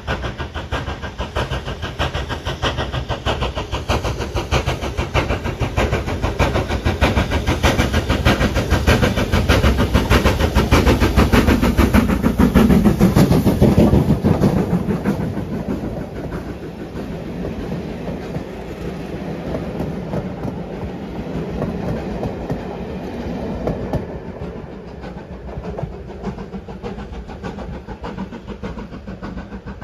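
BR Standard Class 5 4-6-0 steam locomotive chuffing steadily as it approaches with a train of coaches. It is loudest as it passes about halfway through. The coaches then roll by with a clickety-clack of wheels over the rail joints, fading as the train draws away.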